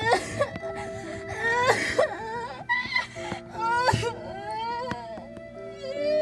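A girl wailing and whimpering in drawn-out, rising and falling cries, over slow background music with long held notes.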